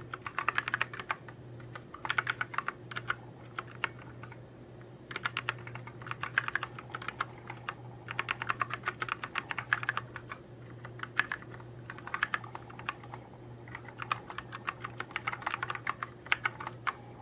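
Typing on a computer keyboard: runs of rapid key clicks, each a second or two long, with short pauses between, over a faint steady low hum.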